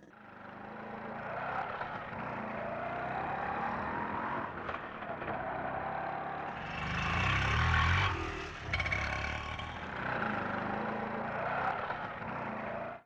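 Indian auto rickshaw's small engine running as it drives, its pitch rising about three seconds in and getting louder around seven to eight seconds in. The sound cuts off abruptly at the end.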